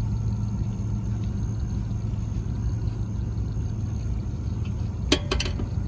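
Car engine idling with a steady low hum. A few quick sharp clicks come near the end.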